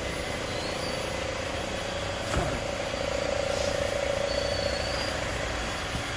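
Comec ACF200 head-surfacing machine running with a steady hum. About two and a half seconds in there is a click, then a motor whine grows stronger for a few seconds as the table carries the cylinder head to the other end of the cutter.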